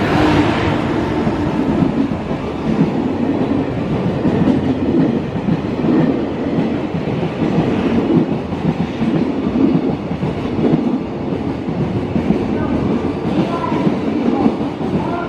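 Freight train of container wagons hauled by an EF210 electric locomotive running through a station at speed: a steady, loud rumble of wheels on rail with repeated clatter over the rail joints. The locomotive passes at the very start, then the wagons roll by.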